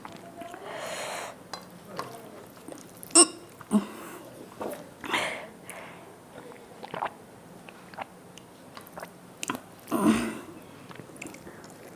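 A woman eating: scattered chewing and mouth sounds with a few short, sharp clicks and breaths. The loudest comes about three seconds in, and a longer one at about ten seconds.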